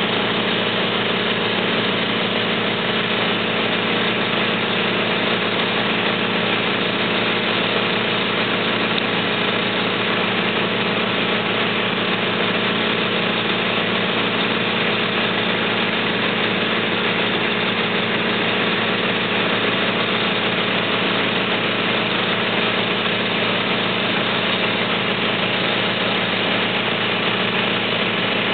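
Fire engine idling steadily: a constant engine hum with several steady tones and no change in pitch or level.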